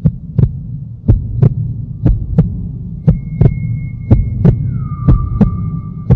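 Eerie horror-style soundtrack: paired thumps like a slow heartbeat, about one pair a second, over a low drone. About halfway in, thin high held tones join, one of them sliding down a little and settling.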